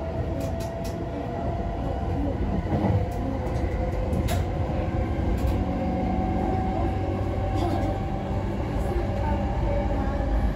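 Interior running noise of a JR East E233 series 0 electric train car in motion: a steady rumble of wheels on rail with faint steady tones and a few light clicks.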